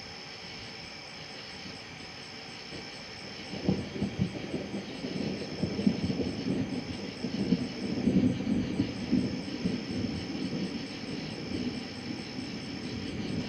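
Rolling thunder from a nearby lightning storm. A low rumble starts about four seconds in with a few sharp crackles, then rumbles on in swelling waves.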